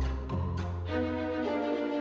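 Background music: held notes that change pitch a few times over a steady low bass note.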